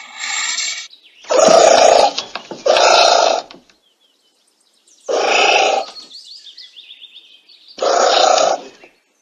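An anteater calling: a series of short, harsh calls, each well under a second, with pauses of one to two seconds between them.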